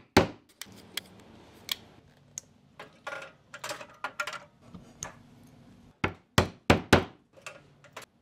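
Irregular knocks and clunks of leatherworking tools: a hand punch into leather on a wooden block and a hand-operated rivet press setting hardware on leather straps. There is a hard strike just after the start and four hard ones in quick succession about six to seven seconds in.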